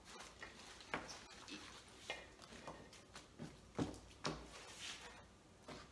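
Faint rustling of Swiss chard leaves being pulled from a stainless steel bowl and laid onto cloth napkins, with a few light knocks of hands and leaves against the bowl and table, the clearest about four seconds in.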